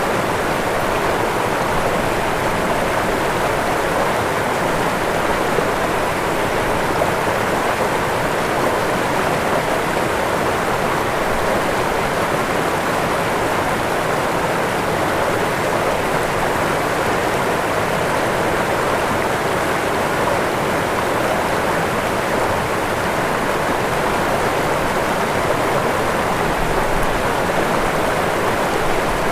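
Waterfall: falling water rushing steadily, an even hiss-like roar with no let-up.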